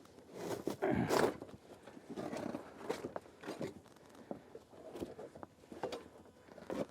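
Worn-out car carpet being pulled up and torn out of a vehicle floor: irregular crunching, crackling and rustling with scattered sharp clicks.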